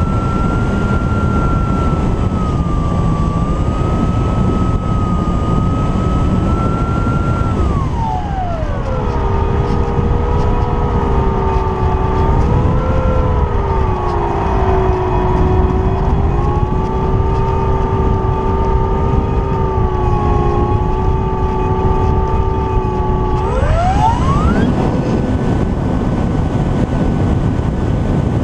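Apprentice S 15e RC trainer plane's brushless electric motor and propeller running with a steady high tone, over wind rushing past the GoPro strapped under the plane. About eight seconds in the pitch drops sharply as the throttle comes back, wavers at the lower pitch for about fifteen seconds, then climbs back up near the end as the throttle opens again.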